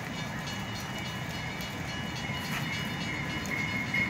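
Amtrak Cascades Talgo passenger train approaching: a low, steady rumble, with a thin high whine that grows louder near the end as the train draws closer.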